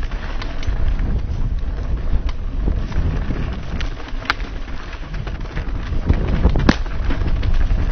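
Wind buffeting a helmet-mounted camera microphone while a mountain bike rolls over a rough dirt trail, with scattered clicks and rattles of gravel and the bike. Two sharper knocks come about four and about seven seconds in.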